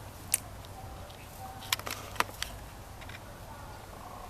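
A handful of sharp clicks and taps, one about half a second in and a quick cluster of four around two seconds in, over a steady low rumble.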